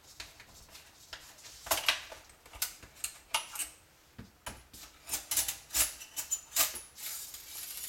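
Handling of a Beretta A391 Xtrema 2 shotgun's magazine cap and coil spring: its magazine spring is drawn out of the tube. The result is a string of sharp metallic clicks and clinks, some with a brief high ring.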